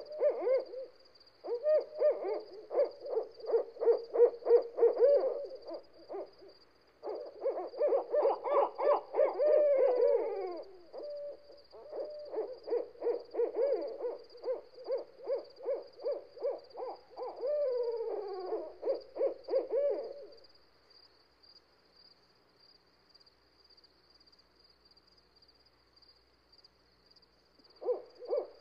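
An owl hooting in rapid runs of short notes, about three a second, broken by a few calls that slide downward. The calls stop about twenty seconds in and start again near the end.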